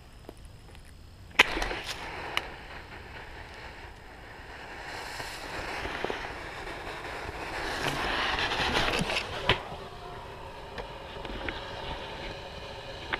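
Orange airsoft smoke grenade hissing as it pours out smoke, the hiss swelling and then dropping off, after a sharp crack about a second in. Leaves and branches brush past the camera.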